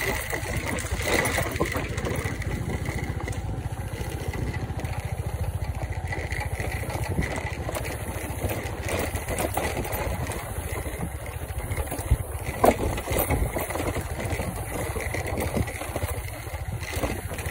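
SYM Woo 115 scooter's small single-cylinder engine running steadily as it is ridden along a dirt trail, with one sharp knock about two-thirds of the way through.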